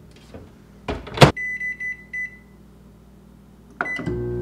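Retro-style countertop microwave: the door shuts with a knock and latch click about a second in, followed by a few short beeps as it is set. Near the end another click and beep, then the oven starts running with a steady hum.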